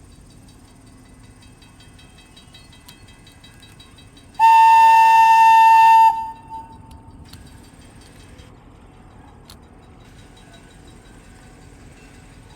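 A train whistle blows once, one loud steady note lasting under two seconds, then dies away with a short echo over a low steady background rumble.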